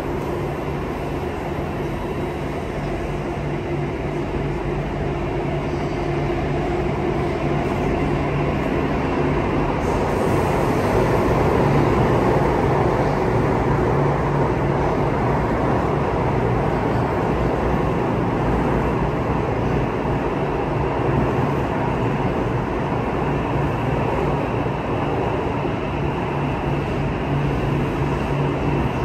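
Circle Line metro train running through a tunnel, heard from inside the car: a steady rumble with a low hum, growing louder over the first dozen seconds and then holding steady.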